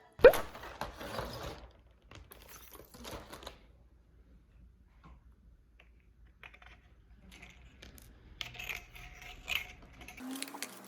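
A sharp knock, then scattered light clicks, clatter and rustling of small objects being handled.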